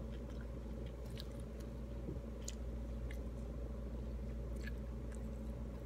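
Chewing a mouthful of pomelo, with a few short, wet clicks from the mouth now and then, over a steady low hum.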